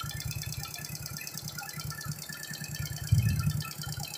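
Suzuki Shogun 125's single-cylinder four-stroke engine idling with a steady, even rattle, with a brief louder thump about three seconds in.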